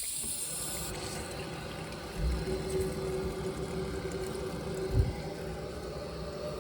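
Hair dryer blowing hot air to dry the boiler's wet diverter valve motor plug, switched off about a second in. It is followed by a low steady hum with two dull knocks, one just after two seconds and one near five seconds.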